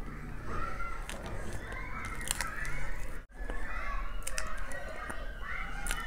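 Close-miked eating sounds: a spoon and mouthfuls of soft, creamy chocolate cake, with wet mouth clicks and smacks. Distant voices in the background.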